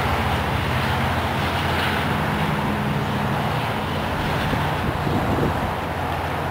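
GO Transit EMD F59PH diesel locomotive running under power, a steady low engine drone, as it pulls a bilevel commuter train.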